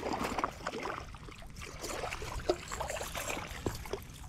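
A hooked largemouth bass splashing and thrashing at the water's surface as it is reeled in toward the bank, in a run of irregular small splashes.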